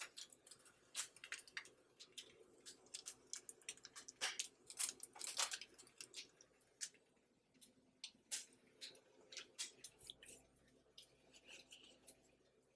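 Faint, irregular crackling and popping of thin turkey slices cooking in fat on a hot griddle, a few pops a second.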